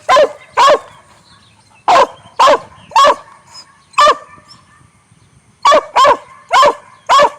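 Original Mountain Cur barking treed at a squirrel: about ten short, loud barks, spaced roughly half a second apart in small groups, with a pause of over a second about midway.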